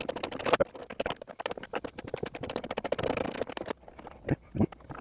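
Socket ratchet clicking in a fast, even run, about ten clicks a second, as a 10 mm nut is spun off; it stops a little before the end, followed by two light knocks.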